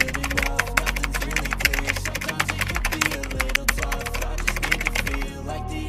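Rapid keyboard-typing clicks from a typing sound effect over a hip-hop instrumental with a steady bass line. The clicks stop about five seconds in, leaving the music.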